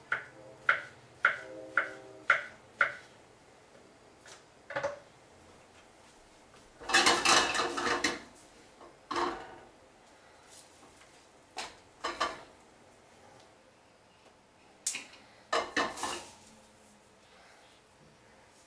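Kitchen clatter: a knife knocking sharply on a cutting board about twice a second for the first three seconds, then a frying pan and dishes being moved and set down, with a longer scraping rush about seven seconds in and a few more knocks later.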